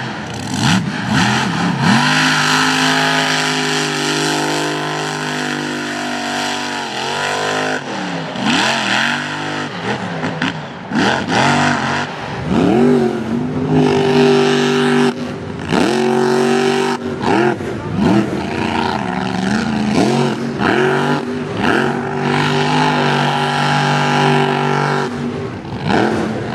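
Supercharged mud truck V8 running at high revs, its pitch dropping and climbing again several times, with stretches held at a steady high note.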